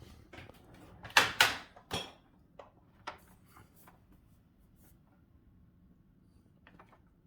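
Handling noise: a quick cluster of knocks and rustles about a second in, then a few lighter clicks, over a faint steady low hum.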